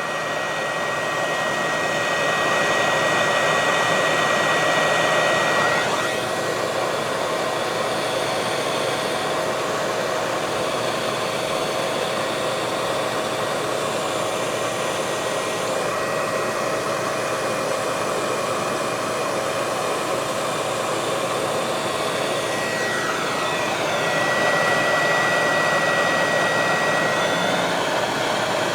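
Hot air gun blowing steadily while shrinking heat-shrink tubing over a spliced cable: a constant rush of air with a thin high whine that drops out about six seconds in and returns near the end.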